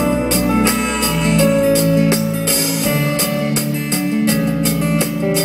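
A band playing an instrumental passage of a folk-rock song: acoustic guitar strumming over a drum kit keeping a steady beat, with held notes from the other instruments.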